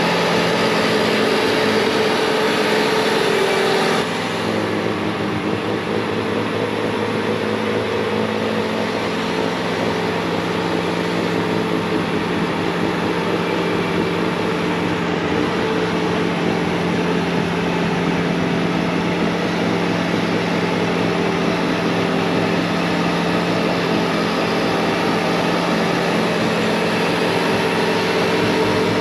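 Bobcat T66 compact track loader's diesel engine running steadily at full throttle, driving a snowblower attachment that is throwing snow. The level drops suddenly about four seconds in, then holds steady.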